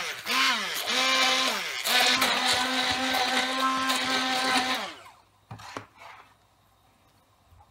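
Hand-held stick blender running as it purées boiled taro stems into a smooth paste, its motor pitch dipping and rising at first as the load changes, then holding steady. It switches off about five seconds in, followed by a couple of light knocks.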